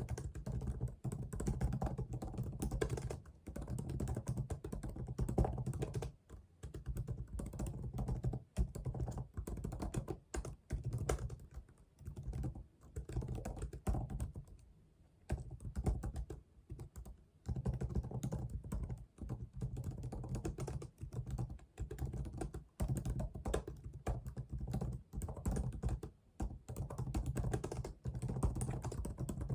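Typing on a computer keyboard: fast runs of key clicks, broken by short pauses every few seconds.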